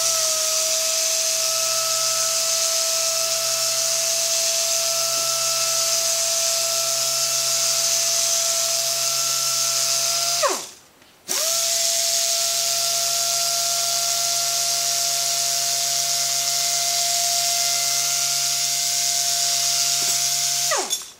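Air-powered random orbital sander running on a wooden board: a steady high whine over a hiss. It runs twice for about ten seconds each time, with a short pause between. Each run spins up quickly at the start and winds down at the end.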